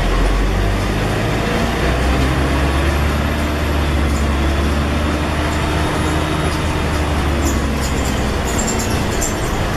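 Scania N113 bus's diesel engine running under way, heard from inside the bus: a steady low drone with road noise, its pitch swelling and easing slightly in the middle. Light rattling clicks come in near the end.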